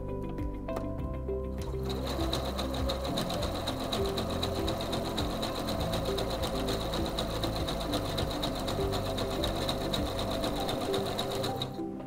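SINGER C430 computerized sewing machine sewing a zigzag stitch at a shortened stitch length. Rapid, even needle strokes with a steady high whine start about two seconds in and stop just before the end.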